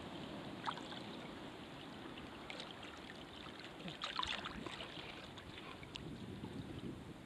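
Calm sea water lapping and trickling close to the microphone, with scattered small splashes, a brief cluster of them about four seconds in.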